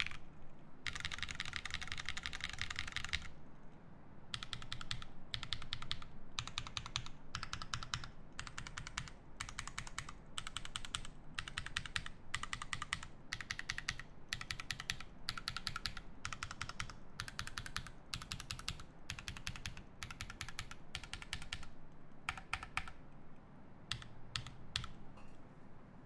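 Obliterated75 mechanical keyboard with lubed Drop Holy Panda tactile switches, an FR4 plate and GMK Cafe keycaps being typed on, in quick runs of keystrokes separated by short breaks. A few lone keystrokes come near the end before the typing stops.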